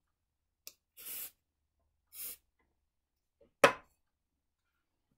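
Two short hisses of CA glue accelerator sprayed from an aerosol can onto freshly glued work, about one and two seconds in, then one sharp knock.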